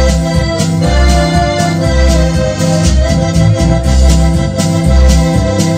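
Electronic keyboard music with organ-like chords held over a steady bass beat and light drum-machine ticks.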